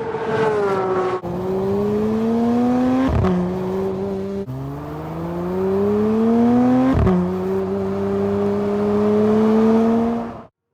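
Porsche 992 GT3's naturally aspirated flat-six accelerating hard through the gears, its exhaust note climbing in pitch and dropping at upshifts about three and seven seconds in. The sound cuts off suddenly near the end.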